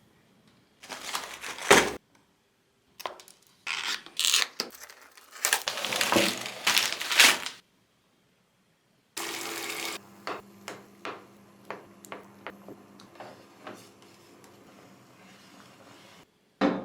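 Kitchen food-preparation noises. First come irregular bursts of rustling and scraping, then a low steady hum with scattered light clicks and taps.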